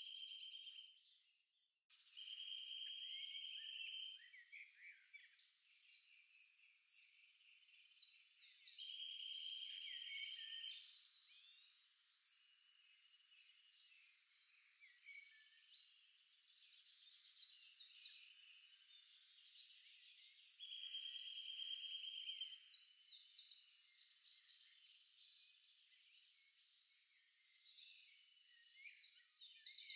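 Songbirds singing: buzzy trills about two seconds long alternate with quick runs of higher chirps, thin-sounding with nothing low beneath them. The song drops out briefly about a second in, then carries on.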